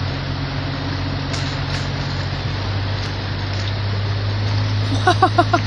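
Jeep engine running steadily at low speed, a low hum heard from inside the cab. Near the end, a brief high-pitched voice breaks in with a quick run of about five short sounds.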